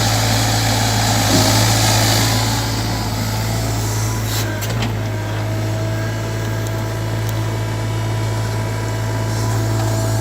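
Sany mini excavator's diesel engine running steadily, with a hiss in the first couple of seconds and a few sharp clicks about four and a half seconds in.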